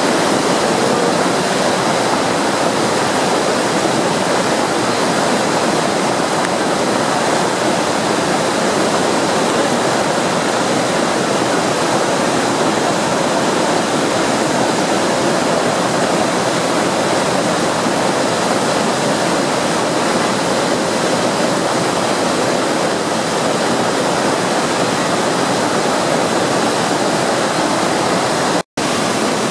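Iguazu Falls: the steady, loud rush of a huge waterfall, an even wash of falling water with no letup. It cuts out for an instant near the end and resumes.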